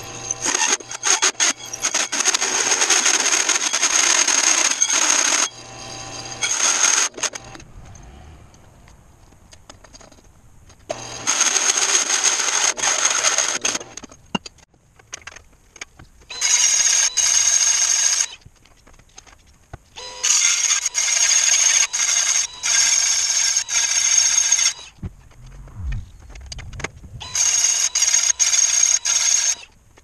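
Power tools cutting a wooden panel: a drill press driving a hole saw through the board, then a handheld power tool working the same panel. The motor whine comes in bursts of a few seconds with quieter pauses between.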